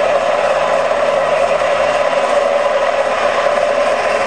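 Model helicopter's rotor drive, a small motor and gears, whirring steadily with a fast ratchet-like rattle as the rotor spins.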